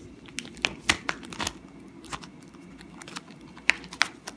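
Clear plastic coin-page sleeves crinkling and crackling as the page is lifted and turned over, with sharp crackles in two clusters, about a second in and again near the end.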